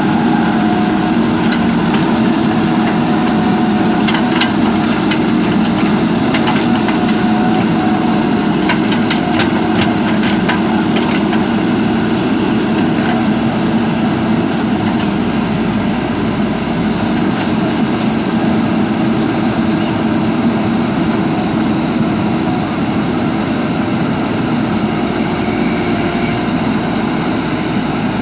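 JCB backhoe loader's diesel engine running steadily, with scattered light clicks and clanks, mostly in the first half.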